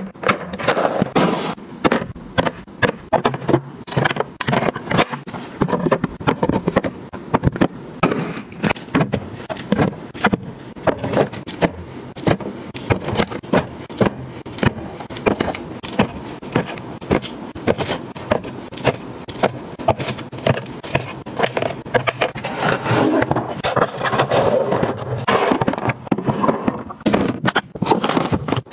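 Many quick, irregular knocks, taps and scrapes as bottles and small drink cartons are set down and slid into hard plastic storage bins.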